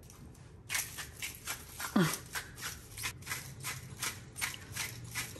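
Hand-twisted spice mill grinding: a quick run of short clicks, about four a second, starting just under a second in.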